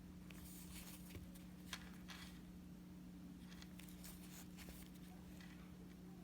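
Faint scratching strokes of a hand-held microblading blade drawn through a banana peel: a few short, quiet scrapes, over a steady low hum.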